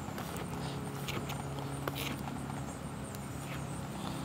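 Chef's knife slicing baby bella mushrooms, the blade tapping irregularly on a wooden cutting board, over a faint steady low hum.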